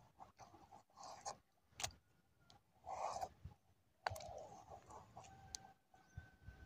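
Faint handling sounds of a gill net being worked by hand on wet mud as fish are picked out of it: scattered small clicks and wet rustles, with a louder rustle about three seconds in and a sharp click just after four seconds.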